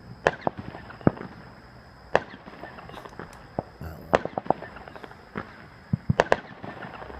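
Fireworks going off all around, a rapid scatter of sharp cracks and bangs, some in quick clusters of three or four, over a steady background of distant crackle.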